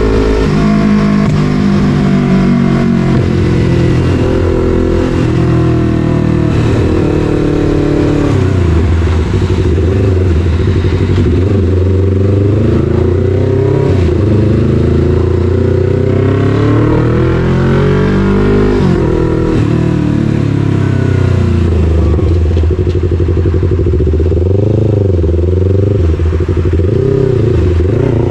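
Yamaha MT-03's parallel-twin engine running loud through an SC-Project full exhaust, heard from the rider's seat. The engine note climbs and falls again and again as the bike accelerates and eases off, with one sharp drop in revs a little past the middle.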